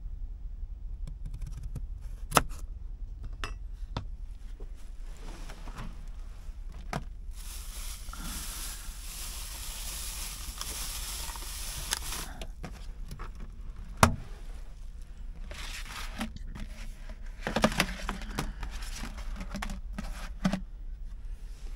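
Kitchen handling in a small space: sharp clicks and knocks of utensils and containers, about five seconds of rustling, hissing noise in the middle, and a burst of clattering near the end, over a steady low hum.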